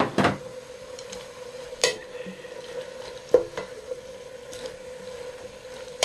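Beef, taro stems and bean sprouts stir-frying in a pot, a steady sizzle under a utensil stirring them. The utensil scrapes and knocks against the pot several times.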